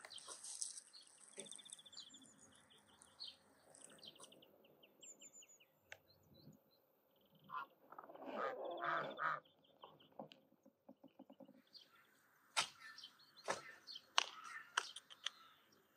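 Farmyard birds: small birds chirp high and thin, and a loud domestic waterfowl call comes about eight seconds in and lasts about a second and a half. Near the end there are several sharp cracks of dry brushwood being handled and broken.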